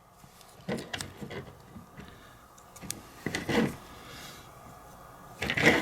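Hand wire stripper working on thin control wires: a few short bursts of clicks and scraping as the jaws close and the insulation is pulled off.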